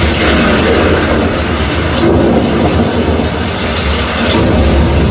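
Dolby Atmos demo soundtrack: loud, dense rumbling sound effects with heavy deep bass, following narration about nature's fury.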